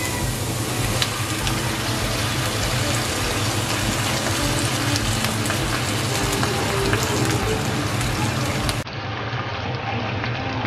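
Bell peppers, onion and pineapple chunks sizzling steadily in hot oil in a wok, with small scattered crackles; sweet and sour sauce is poured in partway through and sizzles as it hits the pan. Near the end the sizzle drops a little and sounds duller.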